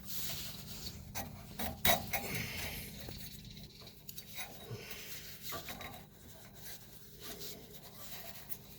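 Rubbing and scraping with scattered light knocks and clicks as the shredded rubber drive belt of a zero-turn mower is worked out of its pulley by hand.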